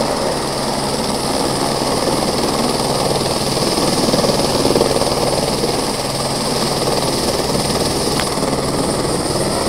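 Eurocopter AS350B3 Ecureuil helicopter hovering close by, its rotor chopping with a steady high turbine whine over it, as it dips its bucket to fill with water from a tank.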